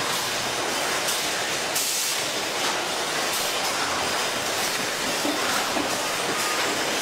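Steady din of a carton packing line's machinery (conveyors and a robotic palletizer), a continuous rushing hiss with faint clatter.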